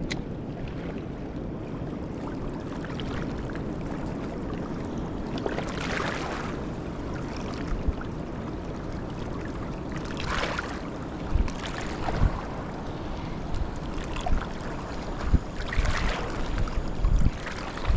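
Fast-flowing river water rushing steadily, swelling and easing every few seconds, with wind buffeting the microphone in low thumps during the second half.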